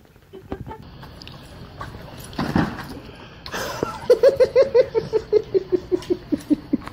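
A person laughing hard from about four seconds in, a quick even run of 'ha' pulses that slowly fall in pitch. Before it come scattered knocks and rustling.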